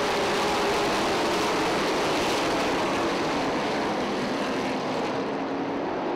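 A full field of pavement late model stock cars with V8 engines racing flat out just after the green flag, their engines blending into one dense, steady wall of noise. The high hiss drops away about five seconds in.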